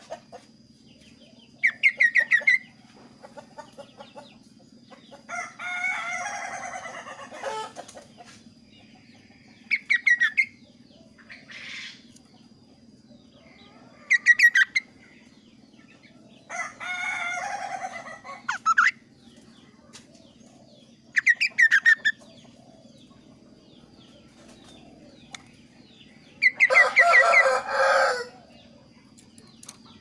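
Caged kaso-kaso songbird calling in phrases every few seconds: short, quick trills alternate with longer, harsher chattering phrases, the loudest of them near the end. A faint steady hum and a thin steady high tone run underneath.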